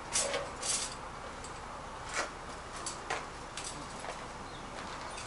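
Scattered light clanks and clicks of a metal wire folding cart being pulled out of a car's hatchback and handled.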